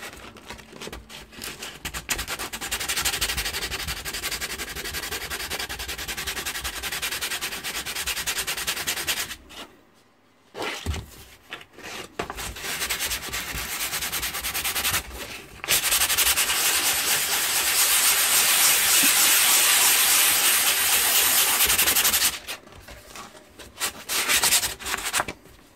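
Medium-grit sandpaper rubbed by hand over a painted canvas, sanding down raised blobs of dried acrylic paint: continuous scratchy rubbing that stops briefly about ten seconds in, is loudest in a long unbroken run in the second half, and thins to a few scattered strokes near the end.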